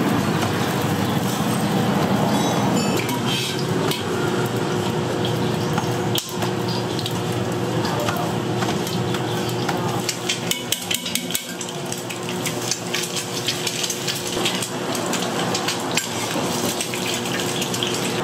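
Metal cooking utensils clinking and scraping at a griddle, the clicks coming thick and fast in the second half, over a steady hiss of frying and a low hum.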